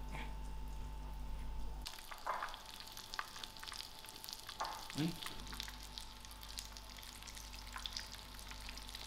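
Chip-crumbed chicken breast frying in hot oil in a pan: a steady crackling sizzle that grows denser about two seconds in.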